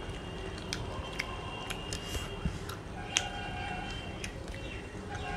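Eating by hand: fingers mixing rice and fish curry on plates, with chewing, heard as scattered small clicks and smacks, one sharper click about three seconds in.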